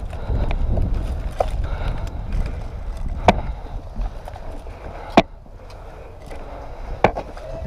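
Footfalls and gear jostling as a player moves during an airsoft game, with a low rumble of movement on the microphone. Then three single sharp cracks about two seconds apart, typical of airsoft gun shots.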